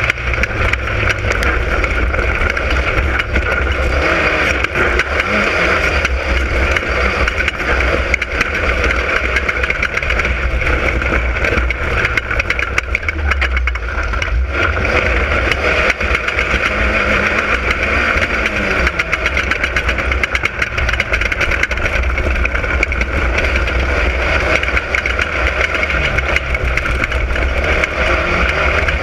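Class 10 off-road desert race car running continuously under a heavy low rumble, its engine pitch rising and falling now and then with throttle and gear changes.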